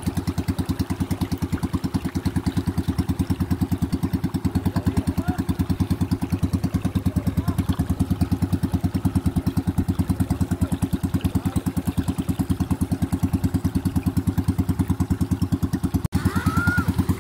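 Small engine of a motorized outrigger boat chugging steadily in a rapid, even pulse at constant speed. It cuts out briefly near the end.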